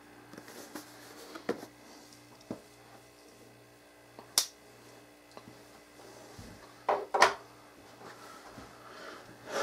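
Scattered clicks and knocks of cardboard packaging and small items being handled on a wooden table, with a sharp click about four seconds in and the loudest knocks, two close together, about seven seconds in. A faint steady hum sits underneath.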